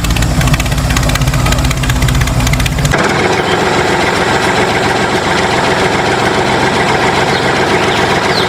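An engine running with a steady, fast-pulsing low rumble; about three seconds in the sound changes abruptly to a higher, busier running noise with less deep bass.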